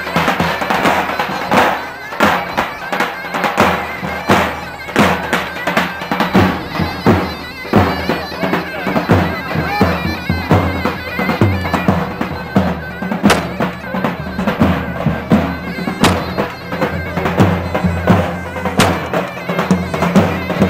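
Davul and zurna playing folk dance music: a reedy wind-instrument melody carried over regular, evenly spaced bass drum beats.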